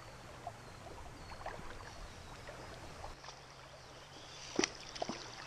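Faint shallow creek water trickling and lapping, with scattered light ticks and two sharper clicks about a second apart near the end.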